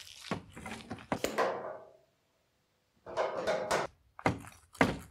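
Dull thunks and scraping as a rubber air hose with a metal end fitting is yanked across concrete. The sound cuts out completely for about a second midway, then a few sharp knocks follow.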